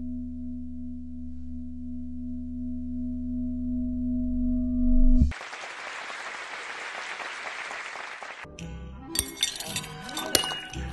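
A steady electronic-sounding drone with a low hum under it swells and then cuts off abruptly about five seconds in. About three seconds of even noise follow, which also stop suddenly. After that come glassy clinks and ringing tones layered into music.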